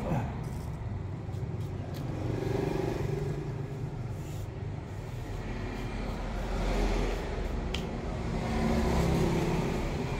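A motor vehicle engine runs steadily, its pitch rising and falling twice. There is a single click about eight seconds in.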